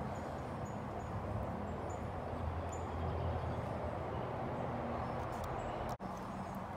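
A steady low rumble with faint, short, high chirps over it, and a brief dropout near the end.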